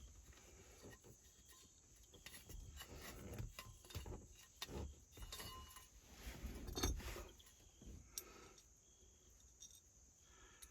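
Faint rustling and small clicks of wiring and switch parts being handled in a steering column, the loudest a little before the seven-second mark, over a steady high chirring of crickets.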